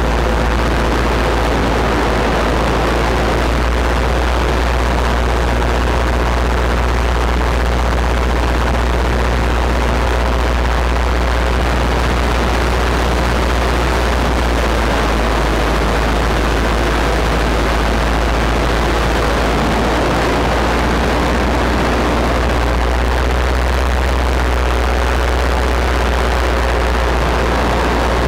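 Paramotor engine and propeller running steadily in flight, with wind rushing over the microphone.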